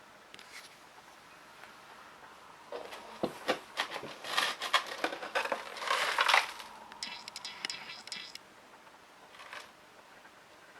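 A run of crinkling, scraping and clicking handling noises, busiest from about three to six seconds in, followed by a short finer crackly rasp.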